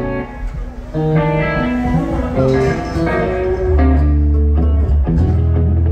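Live band soundcheck: a guitar playing a run of single notes, joined about four seconds in by loud, sustained low bass notes.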